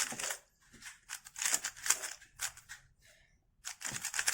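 MoYu RS3M 2020 magnetic 3x3 speedcube being turned quickly: runs of rapid plastic clicking and clacking from the layers, with short pauses between bursts of turns.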